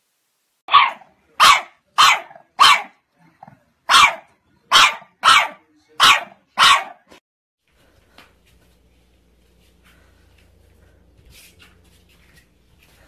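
Pit bull puppy barking: nine short, sharp barks in about six seconds, then faint low sounds only.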